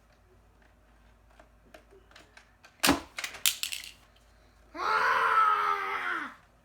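A quick cluster of sharp clacks about three seconds in, then a child's drawn-out yell lasting about a second and a half.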